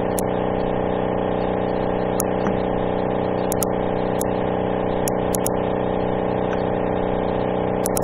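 Steady background hum with a whir, made of several even tones, under scattered sharp mouse clicks: single ones, two quick pairs, and a quick run of clicks near the end as the zoom tool is clicked.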